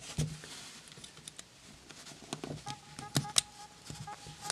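LEGO Technic plastic pieces clicking and knocking as they are handled and fitted together, with a few sharper clicks in the second half.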